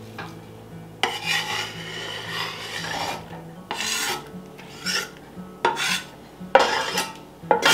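Chef's knife blade scraping diced raw chicken and chopped pepper across a wooden cutting board into a soup pot: one long scrape about a second in, then five shorter strokes.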